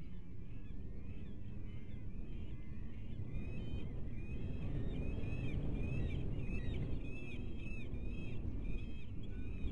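Bald eagles calling: a rapid run of short, high chirping notes, several a second, starting about three seconds in over a steady low rumble.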